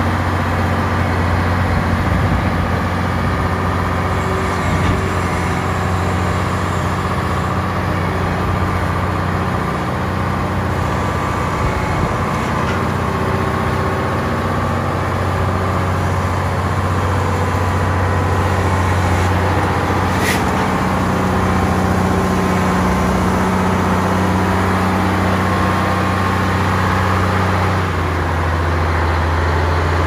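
Komatsu WA500-1 wheel loader's six-cylinder diesel engine running steadily as the heavy loader drives and turns, with a slight change in the engine note near the end.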